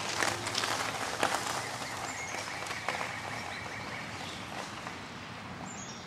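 Electric bike's tyres crunching over loose gravel, a crackle of small stones that fades steadily as the bike rides away.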